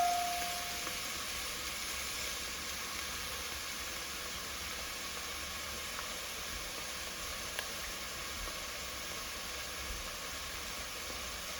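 Frozen chopped spinach and shrimp frying in oil in a pan, a steady soft sizzling hiss; the water has cooked off, so the spinach is nearly done. A ringing metallic tone dies away in the first second.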